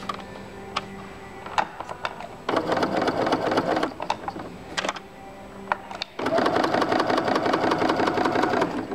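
Baby Lock Tempo electronic sewing machine stitching with no fabric under the foot, its needle pumping rapidly. There is a short run about two and a half seconds in, then a longer, louder run from about six seconds until just before the end, with a few sharp clicks between.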